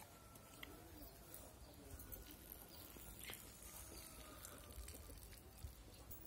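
Near silence: faint outdoor ambience with a low rumble.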